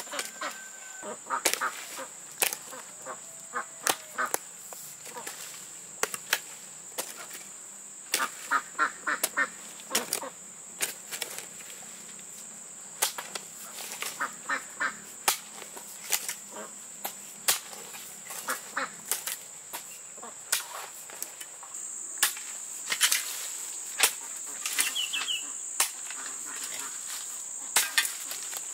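Irregular sharp knocks and clicks, with short pitched animal calls now and then and a steady high-pitched whine that grows louder about two-thirds of the way through.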